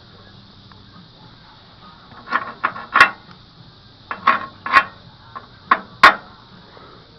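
A hammer striking metal in a burst of sharp, ringing knocks, about seven in all, starting about two seconds in: chipping slag off a fresh weld on thick steel.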